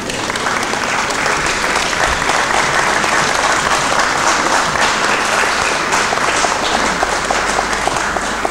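Large audience applauding: many hands clapping in a dense, steady patter that comes in at once and eases off slightly near the end.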